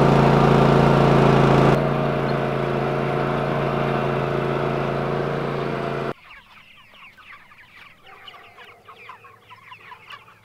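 Engine of a small farm vehicle running steadily close up for about six seconds, then an abrupt change to a flock of young meat chickens cheeping, many short rising peeps.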